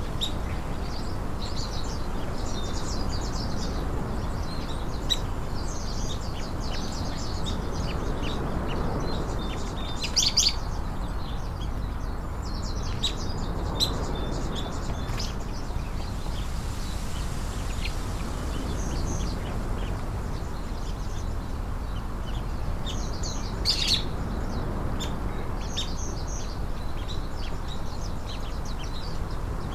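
Small birds chirping on and off over a steady low background noise, with two brief louder sharp sounds, one about ten seconds in and another near twenty-four seconds.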